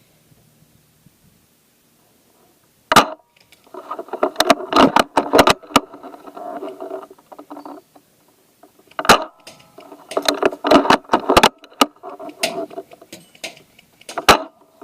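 Airsoft guns firing: a single sharp shot about three seconds in, then several seconds of rapid clattering shots with a pitched whine underneath. The same pattern repeats about nine seconds in and again near the end.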